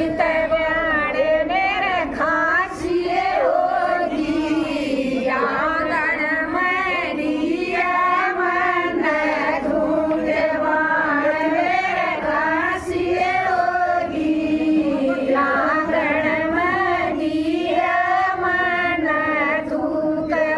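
A group of women singing a devotional bhajan together in unison, one continuous sung line with a wavering, ornamented melody.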